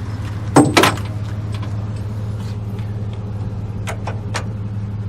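A vehicle engine idling with a steady low hum, with two loud knocks just over half a second in and a couple of sharp clicks about four seconds in.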